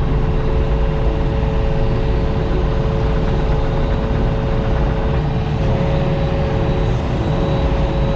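Diesel engine of compact earthmoving equipment running steadily under throttle, with a steady whine-like tone running over the engine.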